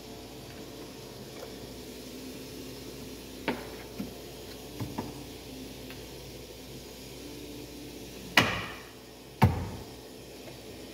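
A few light clicks, then two sharp knocks about a second apart, the first with a short ringing decay: hand work on a car's open tailgate and body trim while a camera cable is routed.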